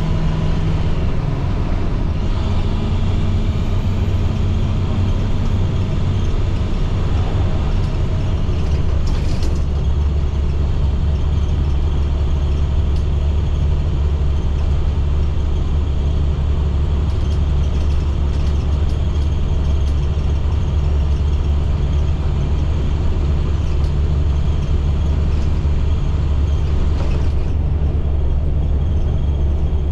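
MaxxForce DT inline-six diesel of a school bus running under way, its low steady note stepping down about a second in and again about eight seconds in, then holding low. The bus's transmission is slow to shift up.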